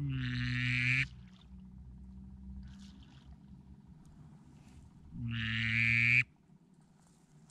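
A duck call blown twice to a group of ducks that are turning, each a single long note of about a second held at one steady pitch, the second about five seconds after the first.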